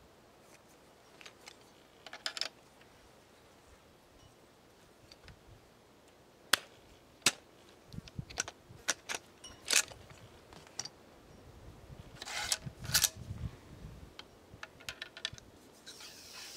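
Muzzle-loading a 12-gauge black-powder shotgun: scattered sharp clicks and taps as a short starter and a wooden ramrod knock against the steel barrel while the wads are seated. A denser run of rubbing and knocking comes about twelve seconds in.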